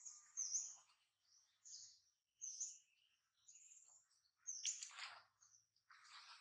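A run of short, high-pitched chirping calls from a small animal, about a dozen, irregularly spaced, with a couple of brief rustling scuffs about two thirds of the way through.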